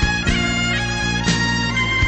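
Background music: held melody notes over a steady low drone, with a beat about once a second.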